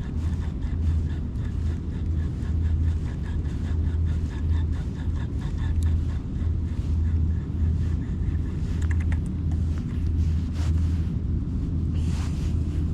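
A low rumble that swells and fades about once a second, with a few faint ticks near the end.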